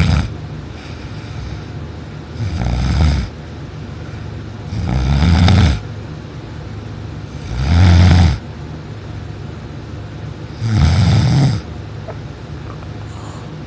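A person snoring loudly in deep sleep. The tail of one snore comes at the start, then four more, each about a second long and roughly every three seconds, with a steady low hum between them.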